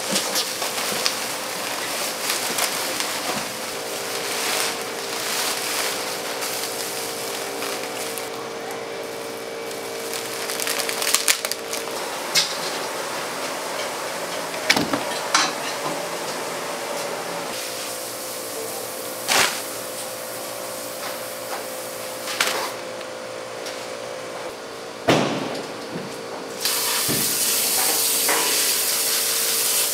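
Scattered knocks and clatter of knives and tools being handled on a fish-cutting table, over a steady hum. Near the end a steady hiss sets in.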